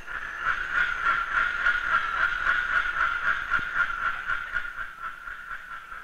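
Rainforest insects droning steadily with a fast, even pulse, easing off a little near the end.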